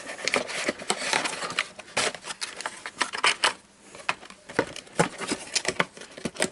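Cardboard packaging being handled: a small white inner box with flaps folded shut and fitted into its printed outer box, giving scattered clicks, taps and rustles, a little quieter about four seconds in.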